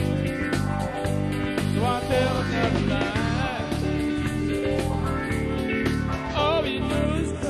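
Country band music: guitar and a melodic lead over a steady bass line and beat.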